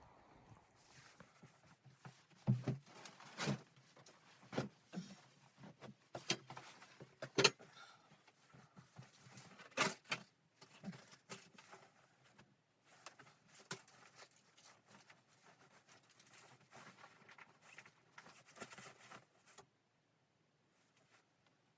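Irregular knocks, clicks and light clattering of hard objects being handled, a dozen or so sharper strikes among softer rustling. The sounds stop a couple of seconds before the end.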